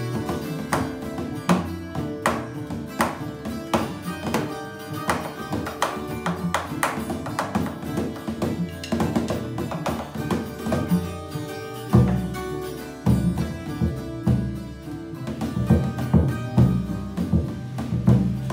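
Acoustic trio of tiple, cello and hand drums playing Colombian folk-style music, with the tiple's plucked strings and the drumsticks' strikes marking a quick beat. About twelve seconds in, the low end grows heavier.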